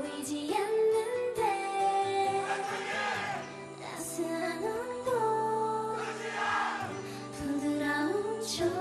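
K-pop girl-group song: female vocals singing held and gliding notes over a backing track.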